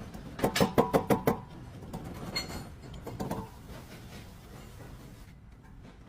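A quick run of about six sharp knocks in under a second, then two fainter knocks a second or so apart.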